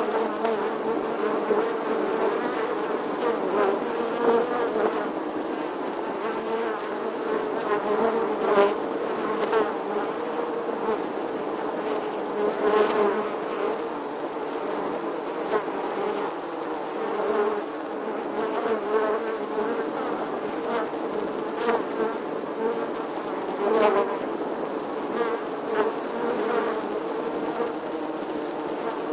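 A bee buzzing continuously, a steady droning hum with short swells every few seconds.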